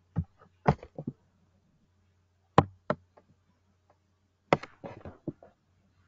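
Sharp clicks of a computer keyboard and mouse being worked: a few separate clicks, then a quick run of key taps about four and a half seconds in, as text is deleted from a search box.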